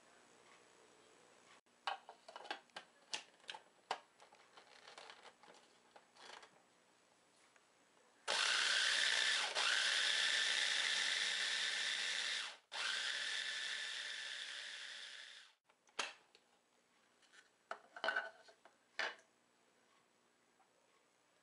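Food processor running, grinding toasted sesame seeds into tahini in two runs of about four and three seconds with a brief stop between, the second growing quieter. Scattered clicks and knocks come before and after the runs.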